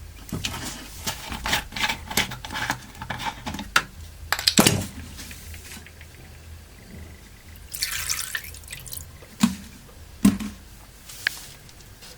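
Water dripping and splashing with a run of sharp clicks and knocks of handling as a mobile phone is put into the liquid in an ultrasonic cleaner's tank, with a short hiss of liquid about eight seconds in.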